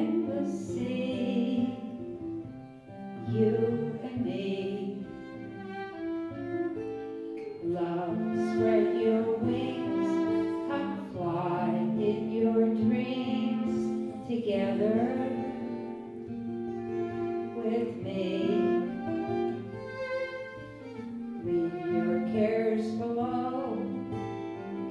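Violin playing a melody over acoustic guitar accompaniment: an instrumental break in a folk song.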